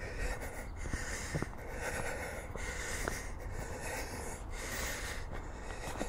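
A person breathing close to the microphone while walking, each breath swelling and fading in a steady rhythm about once a second.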